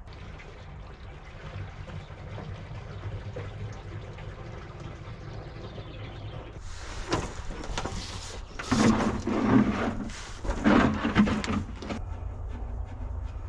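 Warm used engine oil running out of the bus's sump into a drain container, a steady flowing pour that turns louder and rougher for a few seconds in the second half as the drain nears its end.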